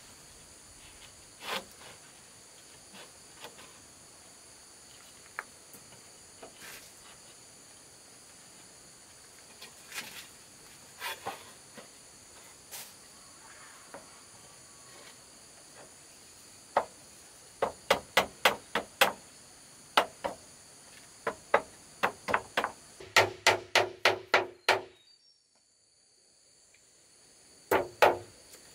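Hand tool knocking on wood, scattered strikes at first, then quick regular strikes in the second half, over a steady high insect drone. Both stop for about two seconds near the end, then the knocking starts again.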